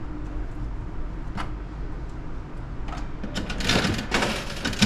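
Capsule-toy (gashapon) machine being worked: a few scattered clicks, then a run of ratcheting clicks and plastic clattering in the last second and a half, ending in the loudest knock.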